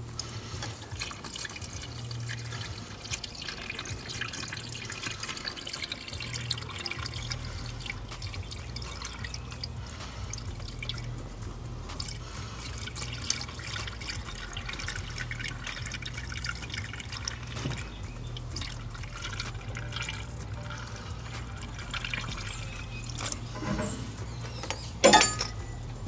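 Antifreeze pouring from a plastic jug through a funnel into the Kubota tractor's coolant filler, a steady stream of liquid. A single sharp knock comes near the end.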